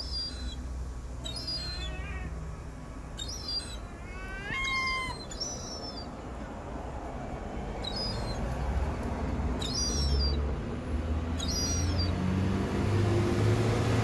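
Gulls calling: short, high-pitched cries every second or two, with one longer cry rising in pitch about four and a half seconds in. Under them runs a low vehicle engine rumble that grows louder near the end.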